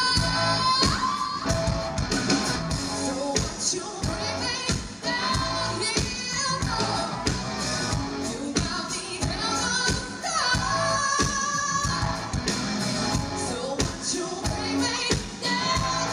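Rock band playing, with a woman singing lead over drums and electric guitar and a steady beat.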